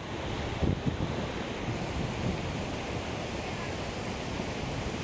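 Steady rush of a waterfall's falling water, with wind buffeting the microphone in the first second or two.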